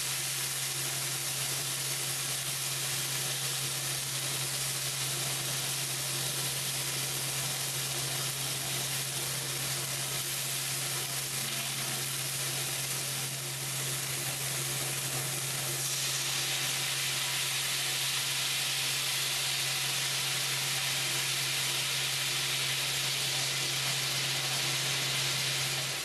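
Chicken pieces sizzling in hot oil in a cast iron skillet. About sixteen seconds in, the sizzle turns louder and brighter as teriyaki sauce goes into the pan and bubbles. A steady low hum runs underneath.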